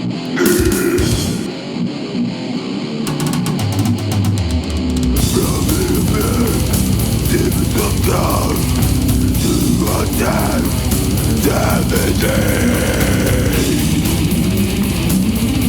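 Death metal from a 1995 cassette recording, instrumental: a distorted electric guitar riff plays alone, then drums and bass come in over about two seconds, and from about five seconds in the full band plays with fast, driving drumming.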